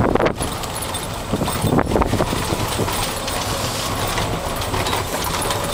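Golf cart rolling down a steep concrete path: a steady noise from the moving cart, with a couple of short knocks near the start and about two seconds in.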